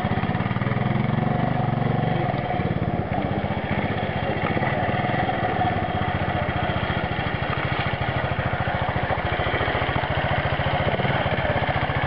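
Trials motorcycle engine running at low revs in a steady, fast putter, a little fuller in the first few seconds as the bike is worked through a slow turn.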